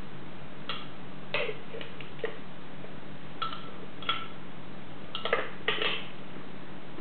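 Metal spoon clinking against a blender jug as a drink is poured out: about eight light, irregular taps with a short ring, over a steady low hum.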